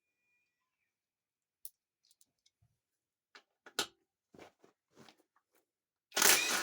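Scattered light clicks and knocks of hand tools and metal parts being handled during a TH400 automatic transmission teardown, then a louder half-second clatter near the end.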